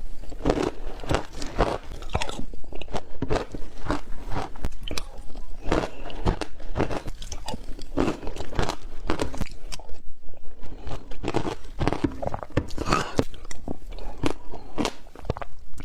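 Frozen matcha ice being crunched and chewed by mouth, one crunching bite after another, several a second, without pause.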